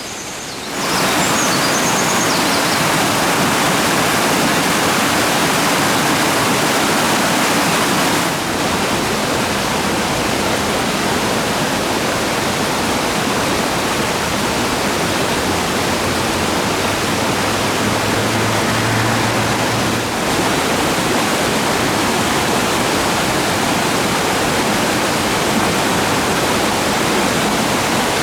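Rushing water of a mountain stream over rocks, a loud, steady roar that swells up suddenly about a second in. A small bird chirps faintly at the very start.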